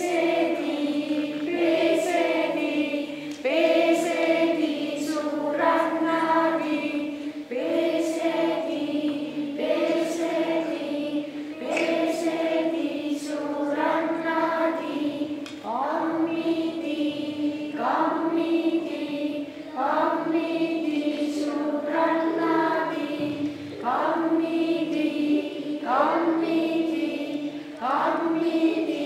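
A group of voices singing a repetitive, chant-like song on a narrow melody, with a new phrase starting about every two seconds.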